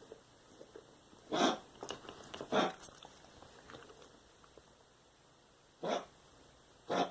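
A dog making four short, loud noises: one about a second and a half in, another a second later, then two more near the end about a second apart.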